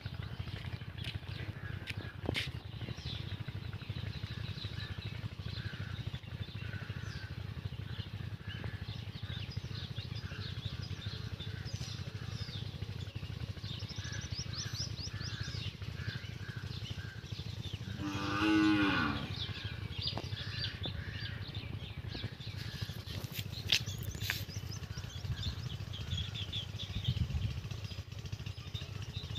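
A cow moos once, about eighteen seconds in, a single wavering call of about a second that falls in pitch at the end, over a steady low rumble and scattered bird chirps.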